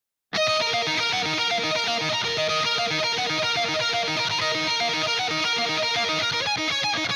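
Background music with guitar that starts suddenly after a moment of silence and carries a steady, even pulse.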